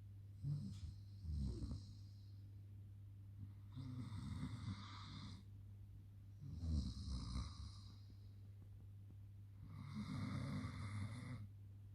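A Saarloos wolfdog snoring in its sleep: a raspy snoring breath about every three seconds, over a steady low hum.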